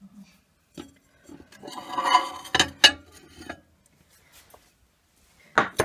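Dishware being handled: a click, then a stretch of rubbing and clinking with a couple of sharp clicks, and a sharp knock near the end.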